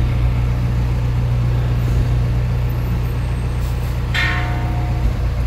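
Steady low engine rumble of a large diesel vehicle running close by, with general street noise.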